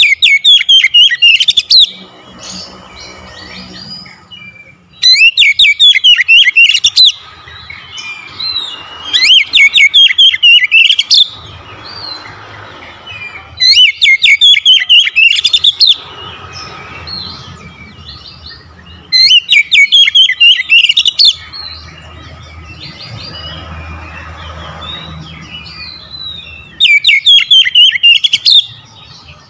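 Oriental magpie-robin singing in full song: six loud bursts, each about two seconds of rapid, sharply rising whistled notes, repeated every few seconds, with softer chirps in between.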